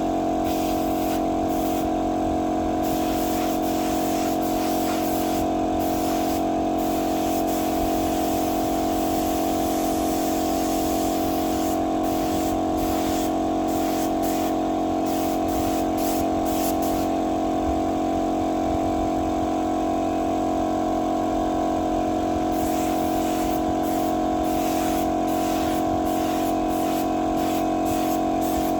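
Steady motor hum from an air compressor, with a paint spray gun hissing in irregular on-off bursts.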